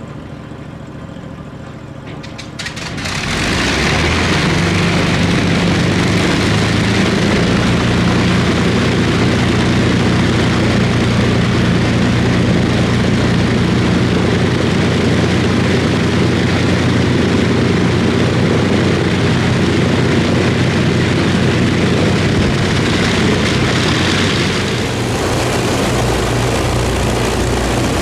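Avro Lancaster's Rolls-Royce Merlin V12 engine turning over on the starter and catching about three seconds in, then running steadily with a loud, deep drone. The level eases a little near the end.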